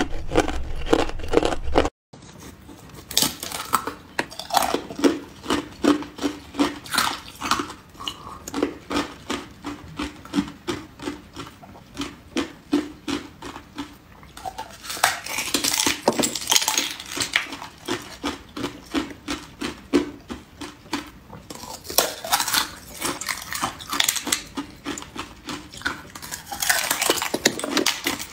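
Thin ice being bitten and chewed: a rapid run of crisp cracks and crackles as thin ice shells snap between the teeth. Louder spells of crunching come three times in the second half. The sound cuts out briefly about two seconds in.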